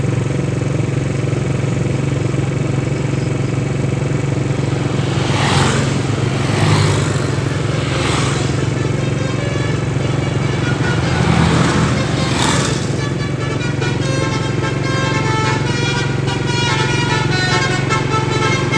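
Bus engine running with a steady low hum, with several short hissing bursts of air between about 5 and 13 seconds. From about 13 seconds a telolet basuri multi-tone musical bus horn plays a tune of changing notes.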